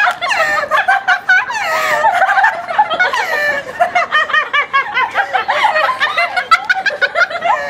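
Several women laughing nonstop together in high-pitched giggles and chuckles, with light slaps on the cheek among the laughs.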